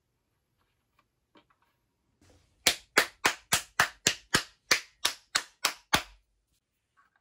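About a dozen sharp hand claps in an even rhythm, roughly three a second, starting a little under three seconds in and stopping about six seconds in.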